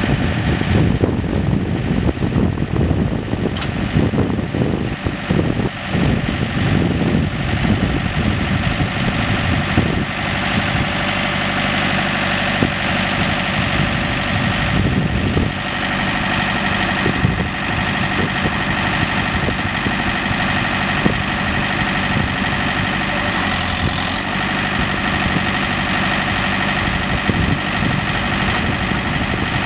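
2008 John Deere 110S backhoe's diesel engine idling. The sound settles into a steadier, more even run about ten seconds in. A steady high whine joins it about halfway through.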